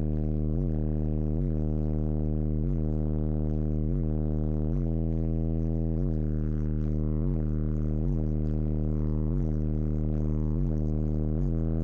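Car subwoofer, a Ground Zero GZRW 15XSPL 15-inch driver in a 6th-order bandpass box, playing a steady, loud low bass note with many overtones, broken by a short dip about every two-thirds of a second.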